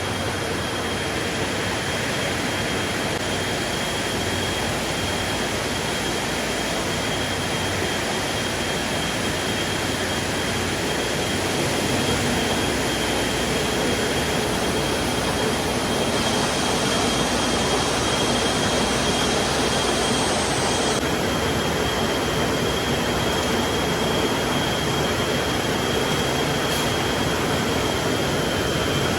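Steady roar of machinery with a constant high whine, slightly louder about halfway through.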